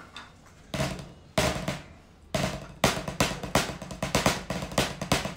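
Wooden drumsticks striking a rubber practice pad set on top of a snare drum, playing rudiment sticking. A few separate accented strokes come first, then a steady run of quick strokes from about halfway through.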